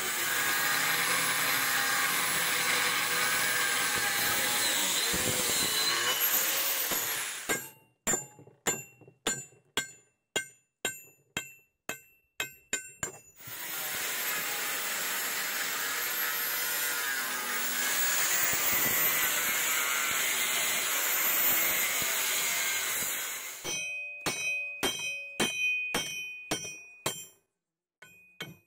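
Angle grinder cutting and grinding into a steel railroad rail, a steady whine with hissing grind, for about seven seconds. Then roughly a dozen sharp, ringing hammer blows on the steel, about two a second. After that the grinder runs again for about ten seconds, followed by another run of ringing hammer strikes near the end.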